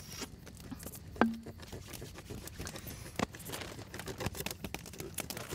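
Wood campfire crackling, with irregular small pops and snaps, one louder pop and a brief low hum about a second in.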